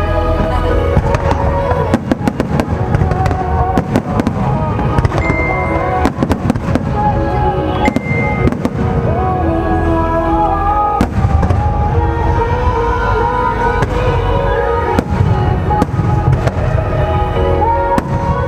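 Aerial fireworks bursting and crackling in quick, irregular succession over a deep rumble, with music playing throughout.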